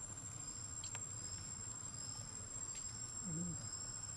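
Forest insects calling: one steady high-pitched whine throughout, with a second, lower high insect call pulsing about once a second. A brief faint low voice-like sound comes about three seconds in.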